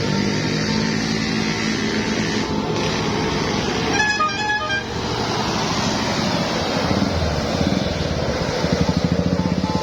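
A bus's multi-tone telolet horn plays a brief run of quick stepping notes about four seconds in, over steady engine noise of passing traffic. Near the end a heavier engine sets up a deep, pulsing sound.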